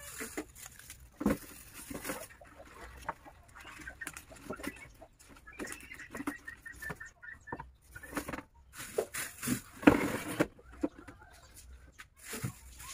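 Plastic grocery bags crinkling and rustling as vegetables and packets are handled and set into a plastic rack, in short irregular bursts, the loudest about ten seconds in. About halfway through, an animal gives a rapid run of short calls in the background.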